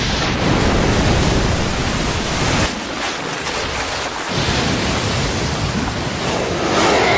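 Anime battle sound effect: a loud, sustained rushing noise of a blast, like wind and churning debris. It starts suddenly just before, dips for about a second around three seconds in, then swells louder near the end.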